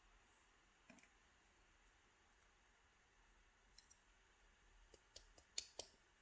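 Faint, scattered clicks and light taps of small metal lock parts being handled while a padlock is taken apart: one click about a second in, then a quick run of clicks near the end.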